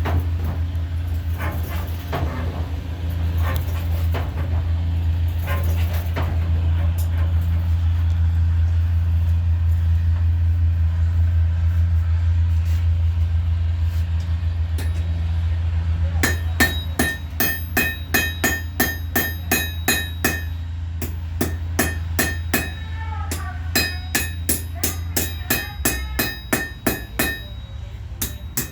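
A steady low hum, then, from a little past halfway, a hand hammer striking steel on an anvil in a regular rhythm of roughly two to three blows a second, each blow ringing, with a few short pauses.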